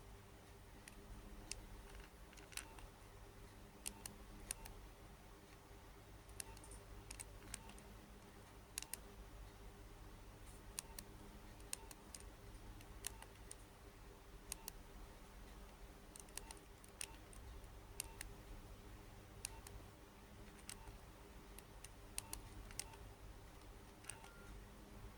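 Small plastic buttons clicking softly and irregularly, about once a second, typical of a mobile phone's keypad being pressed to work through its menus. Under the clicks is a faint steady low hum.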